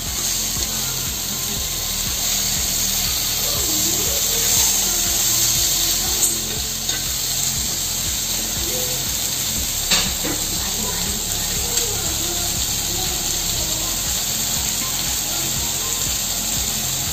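Pineapple slices frying in ghee on a hot tava: a steady sizzle, the masala coating crisping up. A couple of sharp clicks about six and ten seconds in.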